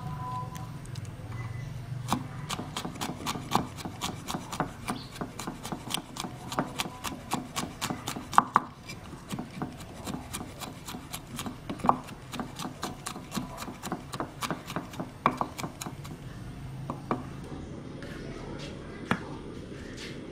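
Cleaver chopping and mincing garlic cloves on a wooden chopping board: a long run of rapid, sharp knocks, about three or four a second. The run stops about three-quarters of the way in, and a couple of single strikes follow.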